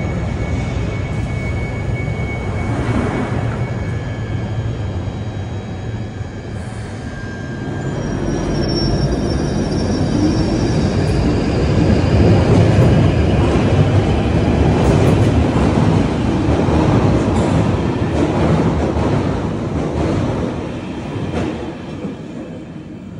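London Underground 1995 Stock train pulling out of a deep tube platform and accelerating away into the tunnel. The low rumble builds to its loudest about halfway through, then fades as the train leaves, with thin high wheel squeals along the way.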